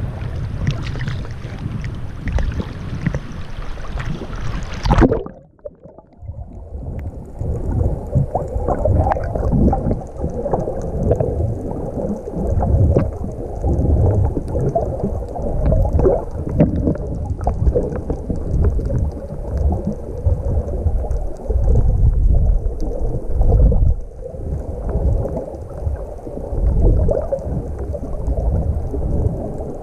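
Wind and sloshing water on an action camera's microphone at the surface, then a splash about five seconds in as the camera goes under. After that comes a muffled underwater rumble and sloshing, with scattered crackles and knocks.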